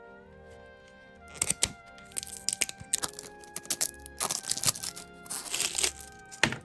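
Soft background music with steady held notes. From about a second in, the plastic wrapping of a mystery toy package crinkles and crackles in quick bursts while being opened, ending in a sharp crack.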